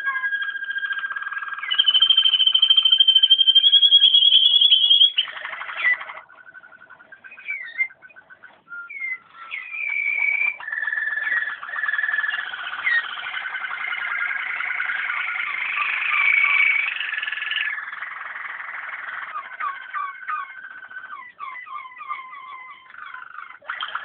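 Waterslager (Malinois) song canaries singing a run of varied tours and trills. A loud, high trill is held for about three seconds near the start, then the song drops away briefly before lower rolling tours resume.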